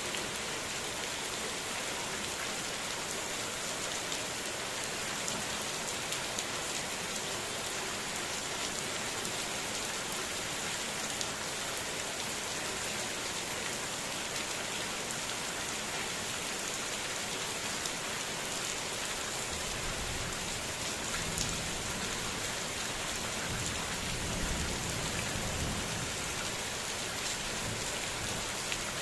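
Heavy rain falling steadily, pattering on surfaces, with a low rumble rising underneath about two-thirds of the way through.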